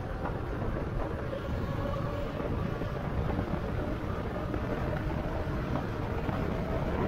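Wind rushing over the microphone and tyre noise of an electric bike riding at speed on a paved road, with a faint steady whine over the noise.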